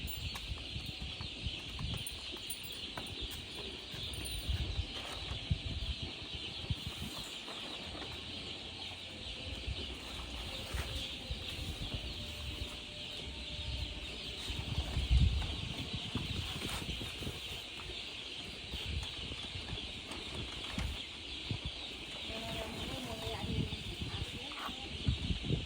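A brood of baby chicks peeping continuously, many high chirps overlapping, with low rustling and knocking underneath and one dull thump about fifteen seconds in.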